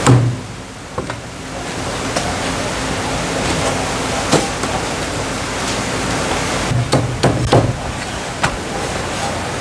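Meat cleaver chopping boiled chicken on a thick wooden chopping block: a heavy chop at the start, a few single strikes, then a quick run of four chops a little before the end, over a steady hiss of background noise.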